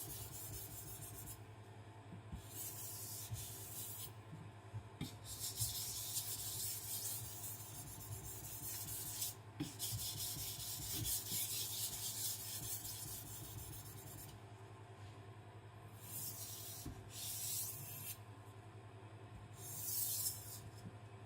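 Hard SRS-15 powder-steel gyuto blade scraping across a Naniwa Professional 1000 whetstone in runs of quick, very light passes, broken by short pauses. These are the final featherlight strokes that refine the burr and form the apex of the edge.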